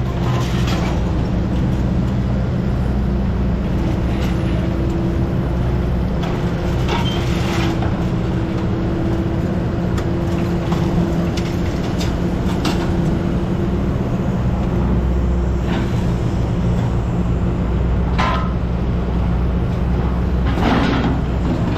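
A scrapyard grapple machine's diesel engine running steadily while unloading scrap fence from a trailer, with a few scattered metal clanks and knocks.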